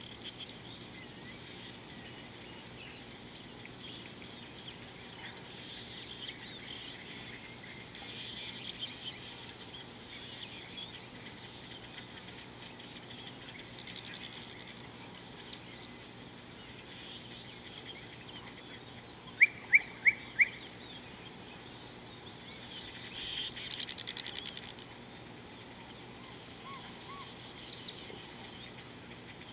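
Wild birds chirping in a steady background chorus. About two-thirds of the way through, a bird gives four short, loud, sharp notes in quick succession, followed a few seconds later by a brief busier flurry of chirps.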